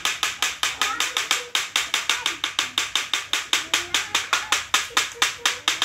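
Rapid, even clapping at about six strikes a second, keeping the beat for a barong dance, with a child's voice singing a wavering tune along with it.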